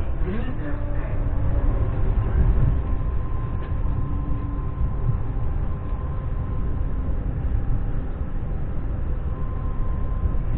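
Ivolga electric train running, heard from inside the passenger car: a steady low rumble with a faint thin whine over it.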